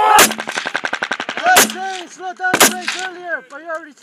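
Rapid burst of machine-gun fire, about a dozen rounds a second for a second and a half, among louder single gun reports: one right at the start, one after about a second and a half and one after about two and a half seconds.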